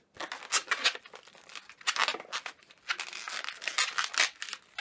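Latex twisting balloon squeaking and rubbing against itself as it is twisted into bubbles, in an irregular string of short squeaks.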